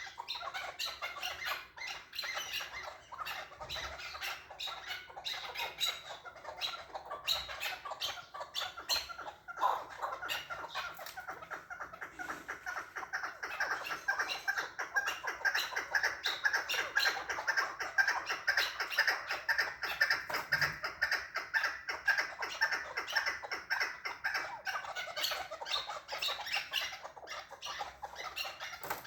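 Chukar partridge calling in a long, rapid run of repeated clucking notes. The bird is in the excited, breeding-season ('mast') state prized by keepers.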